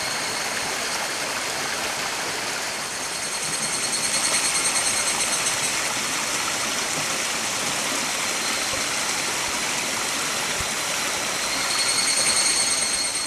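Shallow mountain stream rushing over rocks, a steady full hiss of flowing water. A high, thin trill sits over it, louder a few seconds in and again near the end.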